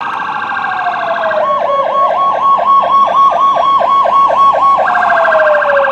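Fire department sirens on responding apparatus. A siren wails downward, switches to a fast yelp for about three seconds, then wails downward again, with a second rapidly pulsing siren tone over the falling parts.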